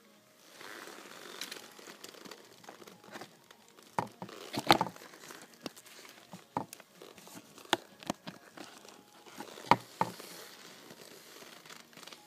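Leather clothing creaking and rustling close to the microphone as the wearer moves, broken by a few sharp clicks and knocks, the loudest about four to five seconds in and near ten seconds in.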